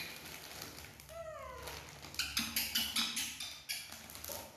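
A baby macaque gives one short whining cry that falls in pitch, about a second in. A plastic snack wrapper then crinkles repeatedly as it is handled.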